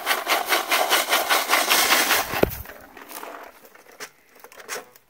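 Hand-held Golden Retriever drywasher shaken back and forth, sand and gravel rattling over its metal screen tray about five times a second as the fines sift through. The shaking stops about halfway through with a knock, followed by a few faint clicks.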